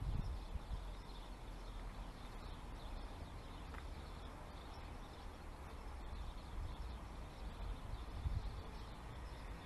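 Wind buffeting the microphone, an uneven low rumble with a few stronger gusts, over faint outdoor ambience with a few faint bird chirps.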